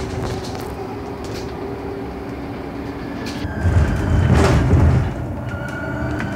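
Cabin noise inside a Solaris Urbino 12 Electric city bus on the move: a steady rumble of the body and road noise, swelling louder about four seconds in. Near the end a faint whine from the electric drive rises slowly in pitch as the bus picks up speed.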